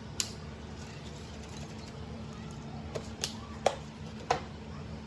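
Food and utensils being handled at a table while rolling spring rolls: a few light, sharp clicks and taps, one just after the start and several close together in the second half, over a steady low hum.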